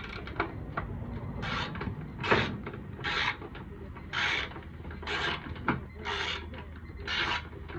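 A series of short rasping, ratcheting strokes, roughly one a second, some louder than others.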